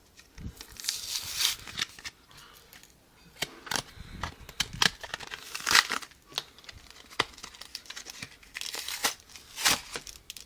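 Foil wrapper of a Yu-Gi-Oh booster pack crinkling in the hands as it is torn open, in irregular crackly bursts with a louder rip about six seconds in and another near the end.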